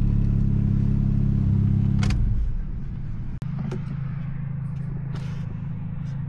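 Turbocharged single-cam Honda D16 four-cylinder engine idling steadily. About two seconds in there is a click, and after it the idle is heard more quietly, as if from outside the car.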